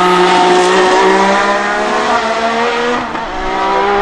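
1979 Renault RS10 Formula 1 car's 1.5-litre twin-turbo Gordini V6 accelerating hard as it pulls away, its note climbing steadily, with a brief dip about three seconds in.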